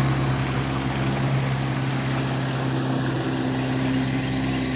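Engine running steadily at a constant speed: a continuous low hum with a rushing noise over it.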